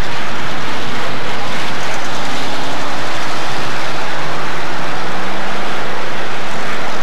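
A pack of street stock race cars running together on the track, their engines a loud, dense roar with pitch rising between about two and six seconds in as the field accelerates.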